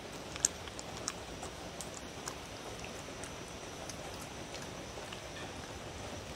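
A dog sniffing and licking at an empty wooden bowl: a few small, sharp mouth clicks and taps over a steady faint hiss. The sharpest click comes about half a second in.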